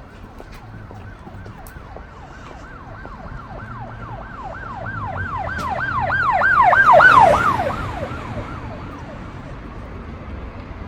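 Emergency vehicle siren sounding a fast yelp, about three rising-and-falling sweeps a second. It grows louder as the vehicle approaches, peaks about seven seconds in, then fades as it passes, over steady street traffic.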